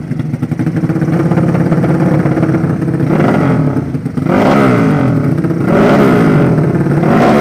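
Drag-race motorcycle with a 200cc horizontal 'sleep engine' running steadily, then revved up several times from about three seconds in, its pitch climbing and dropping with each blip.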